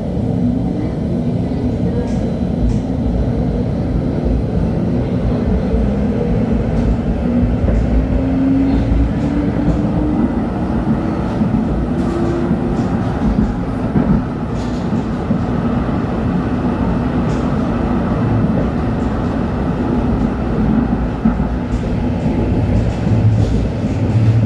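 LHB TW2000 Stadtbahn light-rail car running, with a steady rumble of wheels on track. A drive whine rises slowly in pitch for about ten seconds as the car picks up speed, and a few light knocks come from the track.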